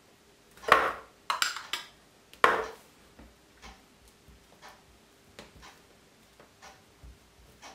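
Metal spoon scraping and tapping as it spreads morcilla over a slice of flattened sandwich bread. A few louder scrapes come in the first three seconds, followed by soft, scattered scraping.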